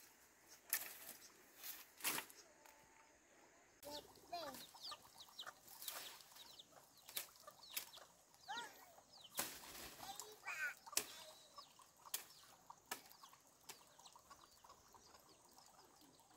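Faint short chirping bird calls, with sharp knocks scattered irregularly among them.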